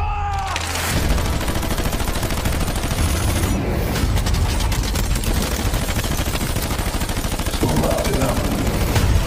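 Sustained volley of rapid automatic gunfire, many shots overlapping without a break.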